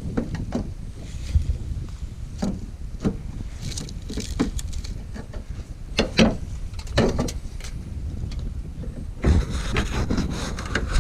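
Irregular knocks and clicks of hand tools and metal parts as a bolt is worked loose on a wrecked car's hood, over a low steady rumble.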